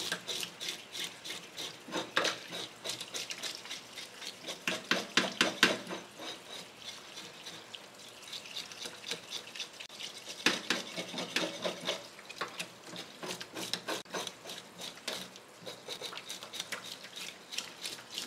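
A fish scale remover scraping the scales off an arakabu (marbled rockfish) in rapid strokes that come in bursts. Running tap water splashes into a stainless-steel sink throughout.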